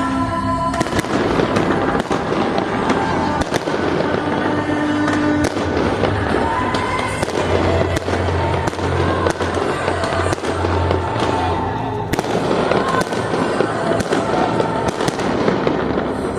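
Fireworks show: a rapid, continuous string of bangs and crackles from bursting shells, with music playing underneath.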